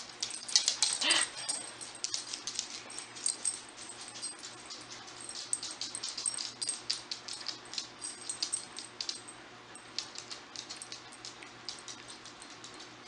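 Small dogs playing with a plush toy: irregular scratchy clicks and scuffles of claws and mouthing throughout, busiest in the first few seconds. A short falling whine comes about a second in.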